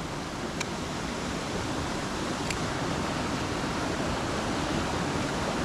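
Mountain stream water rushing over rocks, a steady noise, with two faint ticks in the first half.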